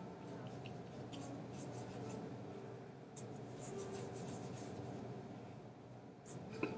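Faint scratchy strokes of a paintbrush laying a diluted India ink wash on paper, with a small sharp tap near the end.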